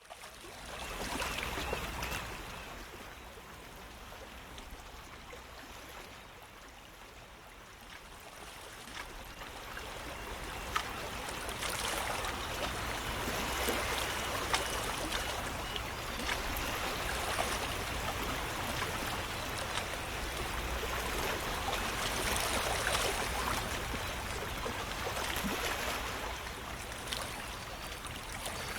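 Running water, a continuous splashing hiss that starts abruptly from silence. It dips a few seconds in, then grows louder and stays fairly even, with small scattered clicks.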